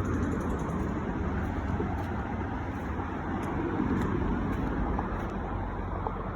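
Steady rumble of road traffic on a highway bridge, with a low steady hum underneath.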